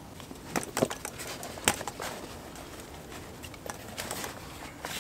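A folding camp chair being collapsed: a few sharp clicks and knocks from its metal frame, most of them in the first two seconds.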